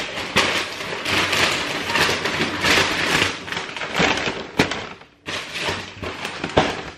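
A paper bag rustling and crinkling as it is handled, with sharp crackles throughout. It stops briefly about five seconds in, then starts again.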